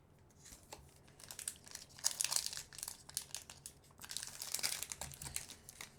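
Booster pack wrapper crinkling as it is handled and torn open, in irregular bursts of crackling about two seconds in and again from about four seconds.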